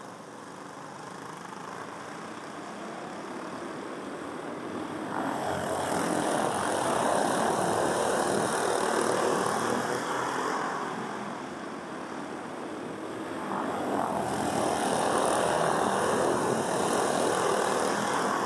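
A pack of go-karts with 5 hp Briggs & Stratton engines running together around a dirt oval. The engines swell louder twice, about five seconds in and again about thirteen seconds in, as the pack comes round, and fade between.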